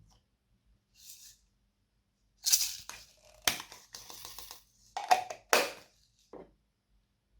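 Slime being squished and pressed by hand, giving a few loud bursts of sticky crackling and popping with sharp clicks in between.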